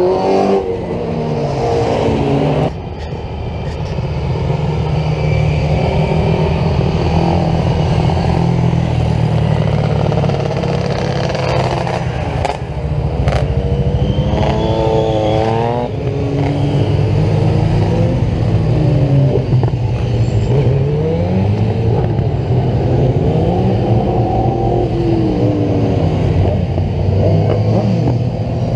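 Racing sidecar outfits and then sport motorcycles accelerating uphill past one after another. The engines rev up and drop back with each gear change, the pitch rising and falling over and over.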